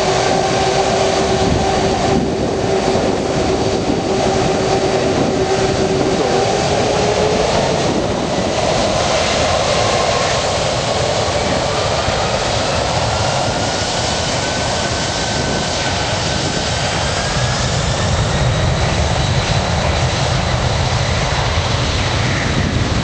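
Boeing 747 jet engines during the landing roll: a loud, steady roar with a whine that fades about seven seconds in, after which a higher whine slowly rises.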